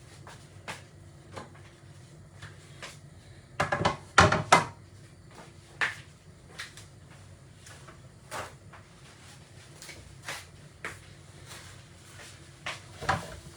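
Kitchen clatter: a scatter of short knocks and clicks as utensils, pots and cupboards are handled, with a loud cluster of knocks about four seconds in, over a low steady hum.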